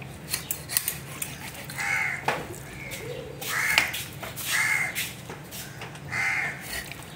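A bird gives four short, harsh calls about a second apart. Under them are faint clicks and taps from a large knife cutting into a big fish on a tiled table.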